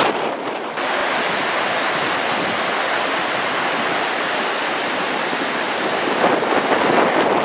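Steady rush of a river in flood, running high after heavy typhoon rain, with wind on the microphone. The noise changes abruptly about a second in.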